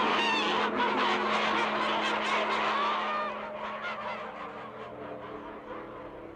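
A large flock of domestic waterfowl calling all at once, a dense overlapping chatter of honks that thins out and fades about three seconds in. A low held tone runs underneath.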